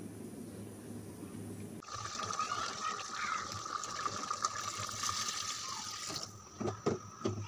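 Water being poured into a pot of beef curry on the stove: a hissing, splashing pour that starts suddenly about two seconds in and stops about six seconds in, followed by a few low thuds.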